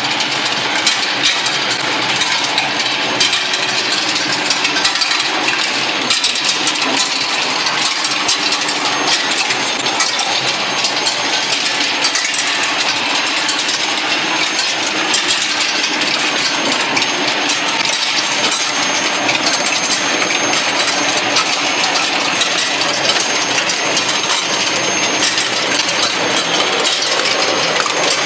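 D30 steel ball skew rolling mill running on a hot rolling line: a steady mechanical din with constant sharp metallic clinking and rattling of steel balls.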